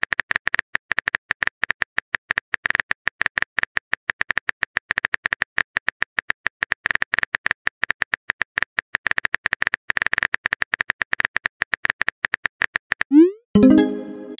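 Simulated phone-keyboard typing clicks, a rapid uneven run of taps as a text message is typed out letter by letter. Near the end the clicks stop and a short rising swoosh and a brief pitched tone play as the message is sent.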